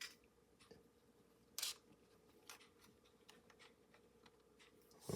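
Near silence: faint room tone with a few soft clicks and one brief rustle about a second and a half in.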